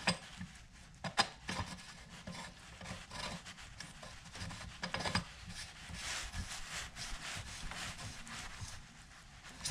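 Faint handling noise of hands screwing the regulator knob back onto a Porter-Cable pancake compressor: small scattered clicks with light rubbing and scraping of metal and fingers, busier a little past the middle.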